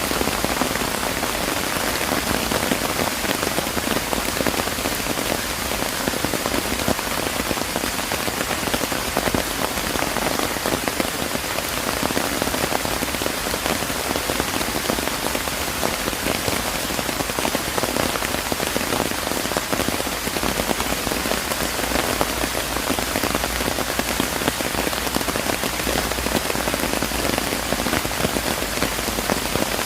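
Steady rain falling, dense drops pattering on surfaces in an even hiss with no let-up.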